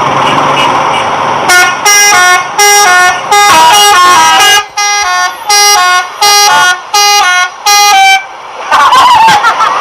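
A multi-tone telolet air horn on a Pandawa 87 bus plays a quick tune of a dozen or so short notes that step between several pitches, with brief pauses, and stops a little after eight seconds in. Voices are heard just after it.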